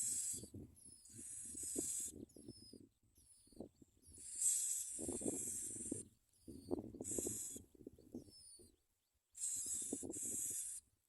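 Bar-winged prinia nestlings begging in repeated hissing bursts of about a second each, with rustling in the nest and faint short high chirps between the bursts.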